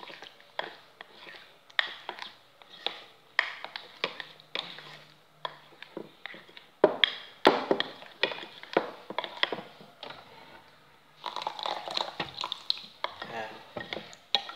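Metal spoon stirring thick flour batter in a ceramic bowl, clinking and scraping against the bowl in irregular strokes about once or twice a second, with a louder run of clinks a little after halfway.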